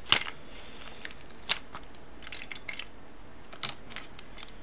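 Peel-off lid being pulled back from a plastic Kinder Joy toy capsule and the plastic toy parts inside handled: a few short crinkles and clicks spread apart, with quiet between them.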